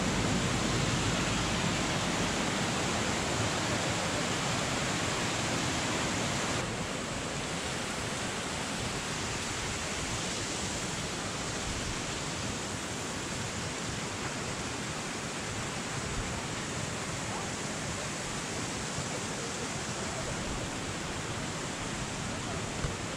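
Small river running over little cascades: a steady rush of water, slightly softer from about six and a half seconds in.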